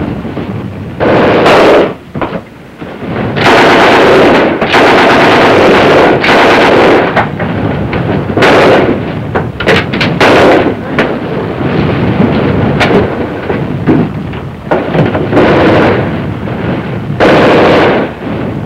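Heavy small-arms gunfire: rifles and automatic weapons firing in loud stretches of one to three seconds, with short lulls between them.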